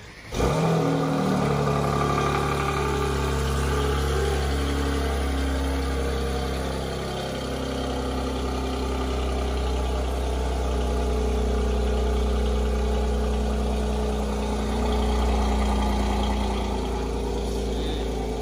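Mercedes-AMG C43 coupe's twin-turbo V6 starting up about half a second in with a brief flare, then idling steadily through the exhaust.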